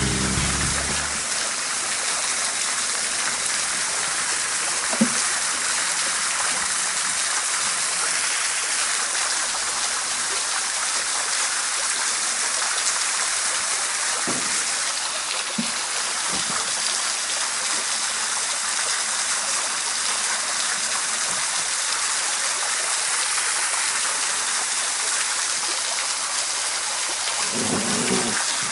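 Steady hiss of water, rain or a nearby inflow stream, with no motor running. A few faint soft knocks sound over it now and then.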